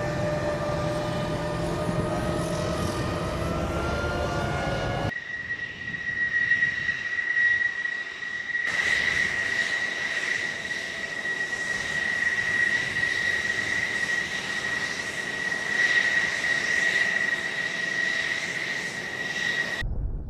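Aircraft engine noise in two stretches. First an engine drone with several pitches, some slowly rising, over a low rumble. Then, after an abrupt change about five seconds in, a steady high whine over a hiss, which stops shortly before the end.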